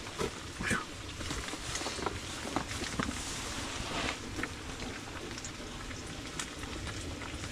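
Battered fish frying in hot oil in a skillet: a steady sizzle with scattered crackles and pops.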